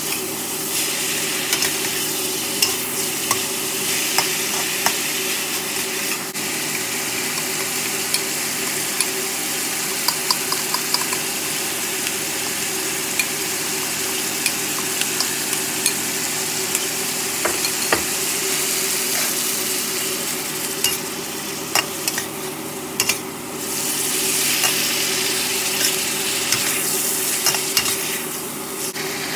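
Chicken, mushrooms and onions sizzling in a hot steel wok as they are stir-fried, the metal spatula scraping and clicking against the pan many times, over a steady low hum.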